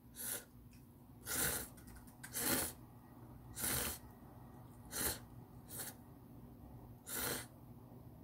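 A person slurping instant ramen noodles, seven short slurps about a second apart.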